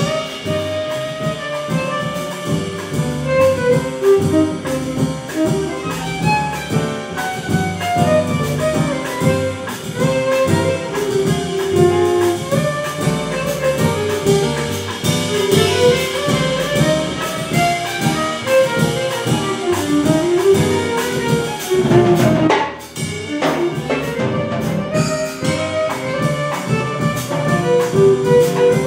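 Small jazz band playing a Latin-jazz rumba live: a violin carries the melody over piano, double bass, drum kit and saxophone. The band drops out briefly about three quarters of the way through, then comes back in.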